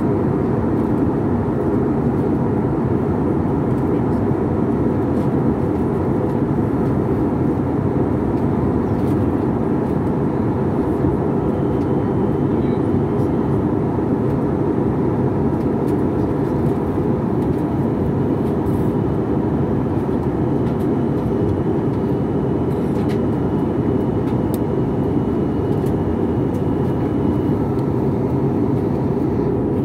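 Steady jet airliner cabin noise from a window seat beside the wing: the turbofan engine and the airflow make an even, unchanging rumble.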